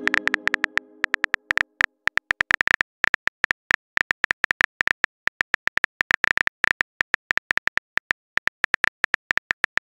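Phone keyboard key clicks: a rapid, irregular run of short taps as a message is typed out letter by letter, with a tone from just before fading out during the first two seconds.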